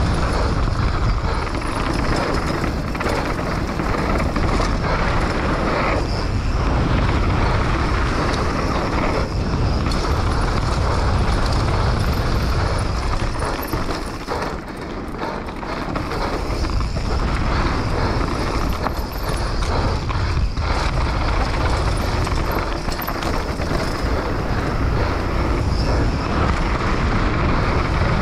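Wind rushing over a helmet-camera microphone while a hardtail mountain bike's tyres roll fast over dirt and loose gravel, with frequent clatters and knocks from the bike over rough ground. The rush eases briefly about halfway through, then picks up again.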